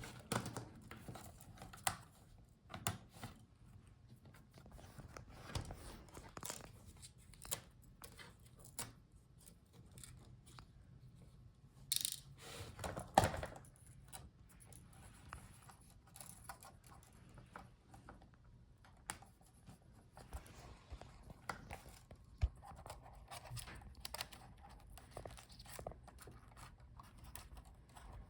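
Handling and small-tool noises from disassembling a laptop's palmrest and touchpad: faint scattered clicks and scrapes, with a louder cluster about twelve to thirteen seconds in.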